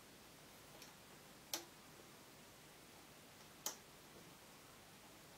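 A few small, sharp clicks, irregularly spaced and about two seconds apart, from rubber loom bands being stretched and snapped over the plastic pegs of a loom; otherwise near silence.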